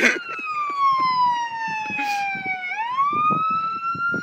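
Emergency vehicle siren wailing: its pitch falls slowly for nearly three seconds, then climbs again.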